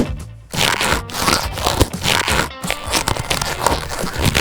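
Background music over short crackling and scraping handling noises, with a sharp click at the start.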